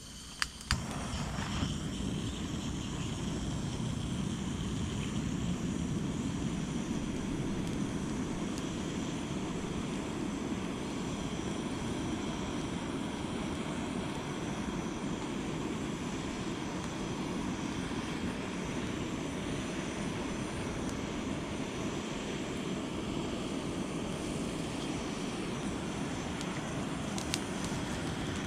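Portable gas stove: a few sharp igniter clicks, then the burner catches and burns with a steady, even roar.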